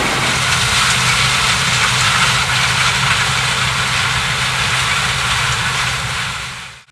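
Claas Lexion 770 TerraTrac combine harvester running while harvesting corn, a loud steady mechanical noise with a low hum from its 16-litre Mercedes-Benz V8 diesel. The sound cuts off abruptly near the end.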